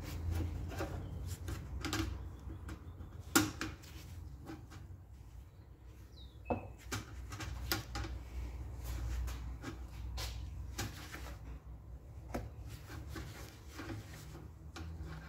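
Irregular clicks and knocks of hand tools and metal parts being handled during bench work on an air compressor, the sharpest click about three seconds in, over a low steady hum.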